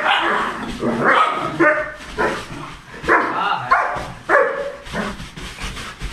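Two dogs, a German shepherd and a small white dog, barking at each other in a rapid string of short barks, about one or two a second, in a squabble over the bed.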